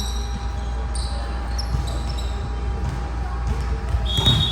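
Volleyball game play in a gym: a ball being hit and bouncing, and short high squeaks, over a steady low rumble. Near the end comes a louder thump with a sharp high tone.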